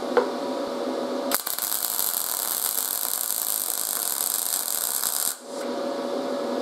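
MIG welding arc on steel, crackling and hissing for about four seconds; it starts about a second and a half in and cuts off sharply. A steady hum with a faint tone sounds before and after the weld.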